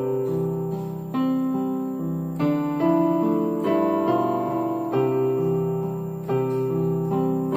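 Slow instrumental keyboard music: held notes and chords changing about once a second.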